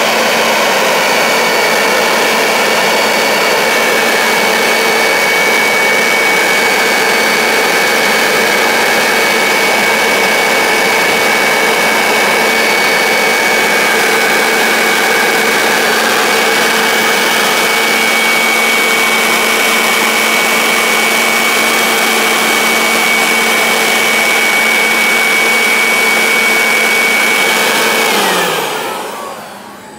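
Leaf blower running steadily with a loud rushing whine. Near the end it is switched off, and its pitch slides down as the motor winds down.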